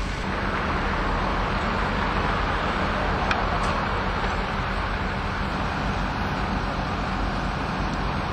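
Steady engine hum with road traffic noise that swells and fades over the first few seconds, and two faint ticks a little after the middle.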